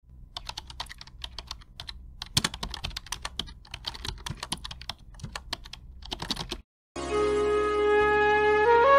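Computer keyboard typing sound effect: quick, irregular key clicks for about six and a half seconds. After a short break, instrumental music starts with a held note over a low drone, and a melody begins to climb near the end.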